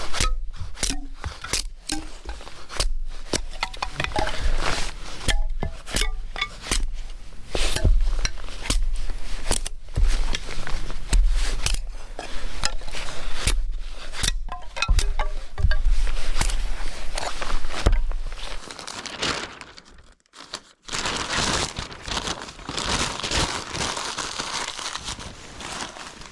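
Cardboard and paper being crumpled and torn by hand, a dense run of sharp crinkling crackles, to get a burn-pile fire going. After a short break about 19 to 21 seconds in, a steadier crackling hiss follows.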